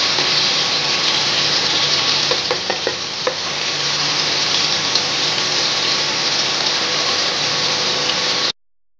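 Sliced onions sizzling as they fry in oil in a pan, stirred with a wooden spatula, with a few light clicks of the spatula about a third of the way in. The sizzle cuts off abruptly near the end.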